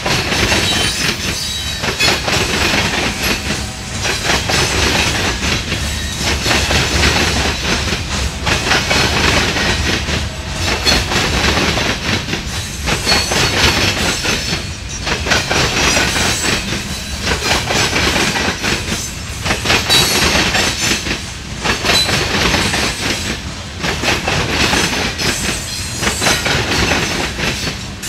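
A train of empty coal cars rolling past, their steel wheels clattering over the rail diamond crossings in a clickety-clack that swells and dips about every two seconds as each car goes by.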